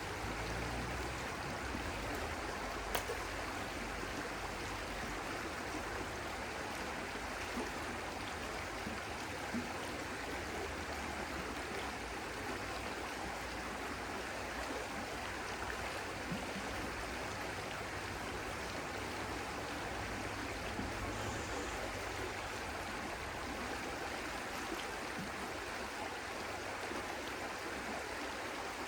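Stream flowing steadily, an even rush of running water with a few faint ticks in it.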